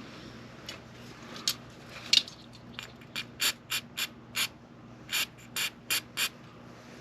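A few clicks, then about ten short hissing sprays in quick succession, from about three seconds in, over a low steady hum. This is sealer being sprayed onto a pen blank to seal in its colour.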